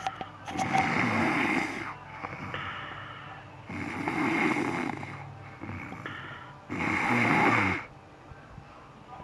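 A sleeping man snoring loudly: three snores about three seconds apart, each about a second long, with softer breathing between; it quietens near the end.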